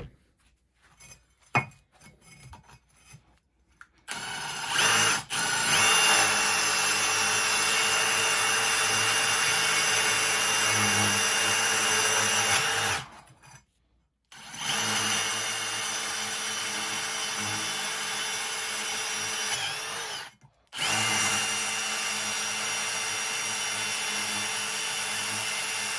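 Milwaukee M18 Fuel Gen 3 impact driver on speed 3 drilling a masonry bit into a clay brick. It runs steadily in three long bursts with two short stops between them, after a few seconds of faint handling sounds.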